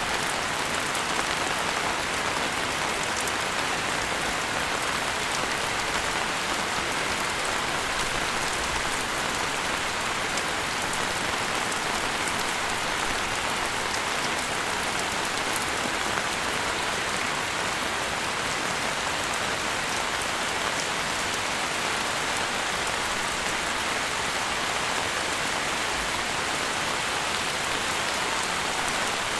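Steady rain falling: an even hiss with faint ticks of individual drops, unchanging throughout.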